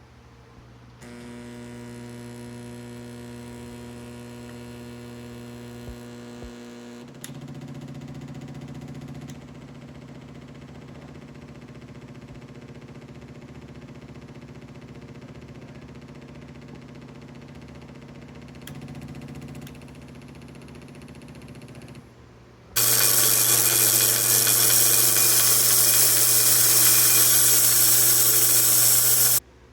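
Electric bandsaw blade butt welder humming steadily, its hum shifting in pitch and level about seven seconds in. Near the end a much louder hissing buzz rides over the hum for about six seconds, then cuts off suddenly.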